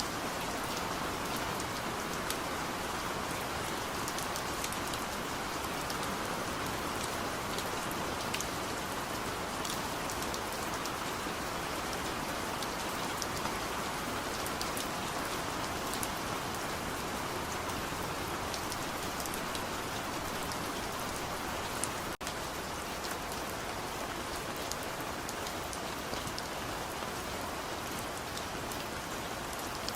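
Steady rain falling, with individual drops ticking on a surface through the even hiss of the downpour. The sound dips for a split second about two-thirds of the way through, then carries on unchanged.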